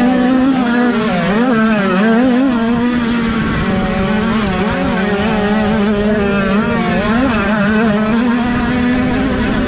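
Several small 50cc two-stroke motocross bike engines running hard. One holds a steady high pitch while others rise and fall repeatedly as the throttle is opened and closed.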